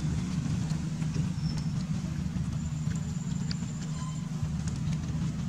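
Steady low hum of an idling engine, with faint scattered ticks over it.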